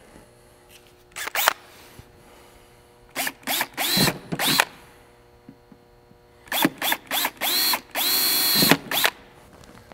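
Cordless drill run in short bursts while drilling holes through a plastic kayak sonar pod, its whine rising as it spins up. A brief burst about a second in, then two clusters of bursts, one around the middle and a longer one near the end.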